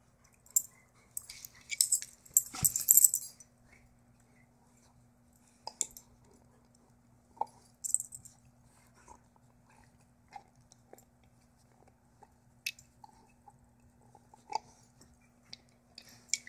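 German shepherd chewing and gnawing a chew, in scattered crunchy, crackling bursts that are busiest in the first three seconds and thin out to occasional clicks.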